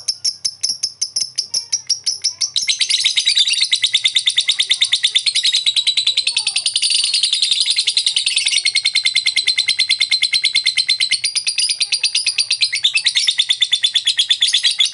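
Lovebird calling: a run of separate sharp high chirps at about six a second (its 'ngetik'), then from about two and a half seconds in a long, unbroken, fast chattering trill (the 'ngekek panjang', long ngekek).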